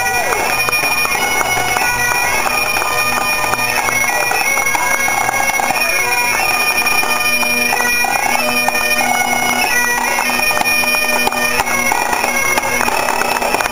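Pipe band playing on the march: Highland bagpipes sound a steady drone under a stepping chanter melody, with snare drum strokes rattling throughout.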